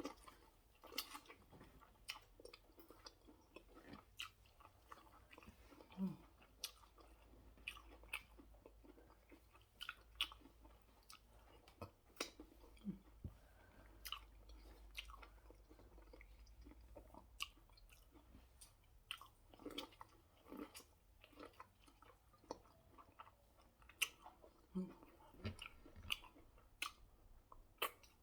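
A person chewing food close to the microphone: soft, irregular mouth clicks and smacks, a few a second, with pauses between bites.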